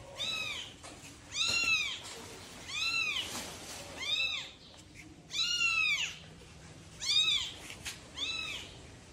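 Kitten mewing repeatedly while its mother carries it in her mouth: about seven short, high-pitched mews, roughly one a second, each rising and falling in pitch.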